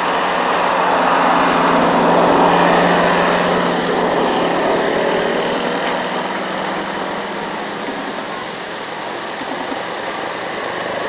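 JCB JS205 excavator's diesel engine running steadily under working load, with a low steady drone that eases off and gets quieter about halfway through.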